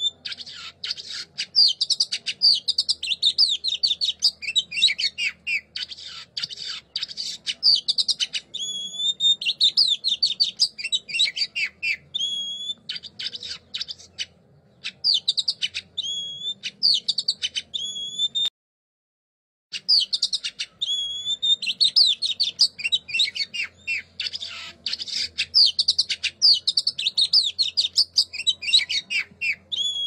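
Songbird song, as used in Indonesian masteran recordings: dense, fast twittering and trills broken every few seconds by a clear rising whistle. The song stops dead for about a second two-thirds of the way through, then resumes.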